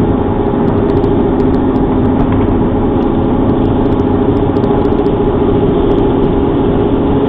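Steady car engine and road noise heard from inside the cabin while cruising on the freeway, with a low, even hum under it.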